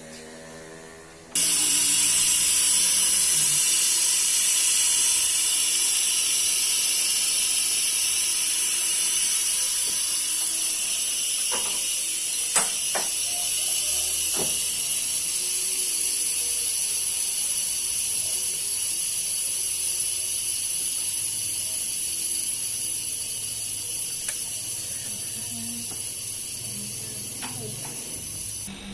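Steady, loud hissing rush of air that starts about a second in, slowly fades and cuts off just before the end, with a few sharp clicks in the middle.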